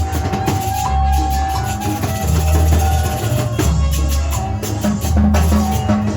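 Latin dance music playing, with drums, percussion and a heavy bass line pulsing in a steady rhythm.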